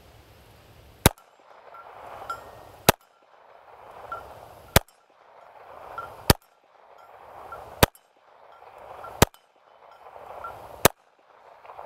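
Walther CCP compact pistol firing seven deliberate single shots, evenly spaced about one every one and a half to two seconds.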